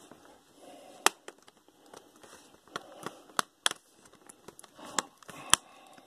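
Plastic hinge cover of a Dell Latitude D630 laptop being pressed down along its length, its clips snapping into place. A series of irregular sharp snaps, about five of them loud.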